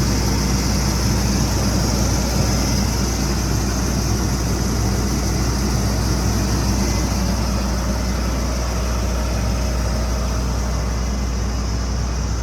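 Heavy farm machine engine running steadily under load, a constant deep drone with no change in pitch.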